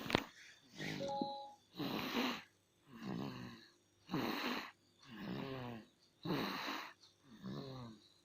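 A sleeping child snoring in a steady rhythm, about one breath sound a second. A hissy breath alternates with a pitched, rattling snore. A sharp click comes at the very start.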